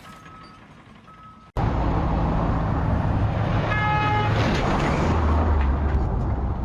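Loud engine running, heavy in the low end, like a vehicle or heavy machine, with one short horn toot about four seconds in. Before it, a quieter stretch holds two short beeps.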